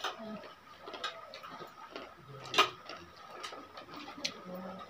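Spoon and plates clinking as people eat: scattered light clicks at irregular intervals, with one sharper clink about two and a half seconds in.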